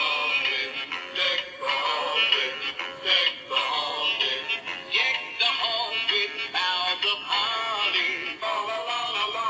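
Animated singing Christmas tree plush toy playing a Christmas song through its built-in speaker: a sung voice over backing music, running without a break.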